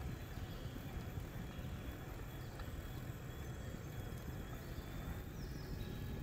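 Steady low rush of wind on the microphone and tyre noise on asphalt from an electric bike riding along a road.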